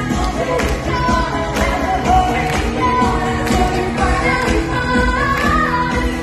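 Upbeat pop-style song: a sung melody over a full band with a steady drum beat.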